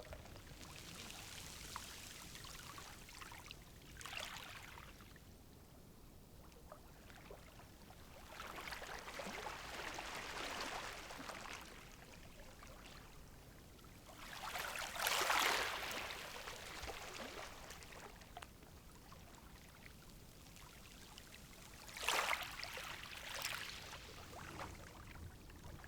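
Calm sea waves washing in and drawing back, about four swells of hissing water. The loudest comes about fifteen seconds in and another sharp one near 22 seconds, with a soft steady wash between them.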